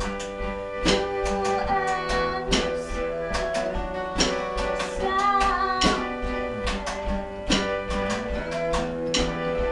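Live band playing: strummed acoustic guitar and a drum kit with sung vocals, the drums striking in a steady beat under held, gliding sung notes.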